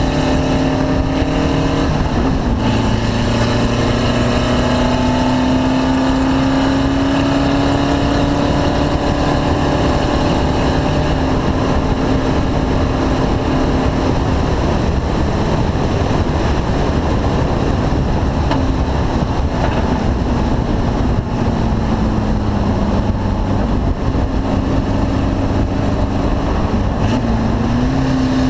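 Car engine running continuously at a high, fairly steady pitch, as on a race track at speed, with a slight drop in revs about two-thirds of the way through and a rise again near the end.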